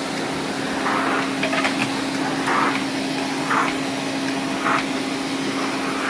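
1978 Hoover 427 vacuum cleaner running for a suction test: a steady motor hum under a constant rush of air, with short louder swells of airflow about once a second.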